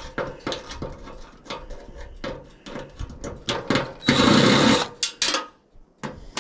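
Cordless drill with a screwdriver bit taking a screw out of a dryer's sheet-metal panel: a run of small clicks, then the motor whirs for about a second and once more briefly.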